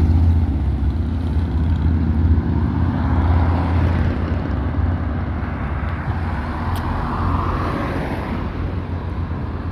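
Motor vehicle engine running with a steady low drone, easing off slightly about four seconds in.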